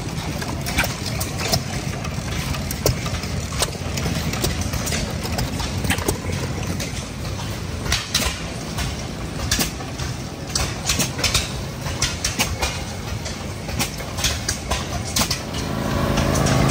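Antique hit-and-miss stationary engines running, with irregular sharp pops and clicks over a steady low engine rumble. Near the end a riding lawn tractor's engine comes up louder.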